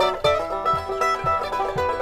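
Mandolin and banjo playing a bluegrass tune together: quick, bright picked notes over a steady pulse about twice a second.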